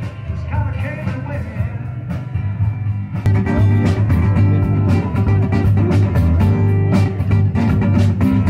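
Rock band music with electric guitar, bass and drums. About three seconds in it gets louder and fuller, with a steady drum beat.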